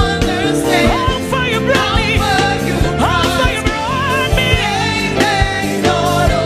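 A woman singing a gospel worship song with wavering, ornamented runs over a live band, with drums and bass keeping a steady beat.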